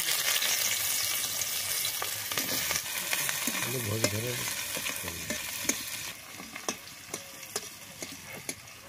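Chopped red onions sizzling in hot oil in a steel kadai, loud at first and slowly settling down. A metal spatula scrapes and clicks against the pan as the onions are stirred.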